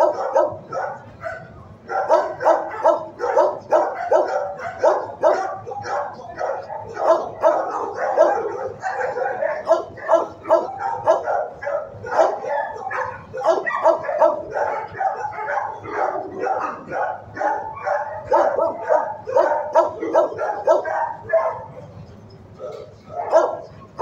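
Several dogs barking without letup in a row of animal-shelter kennels, the barks rapid and overlapping, with short lulls about a second in and near the end.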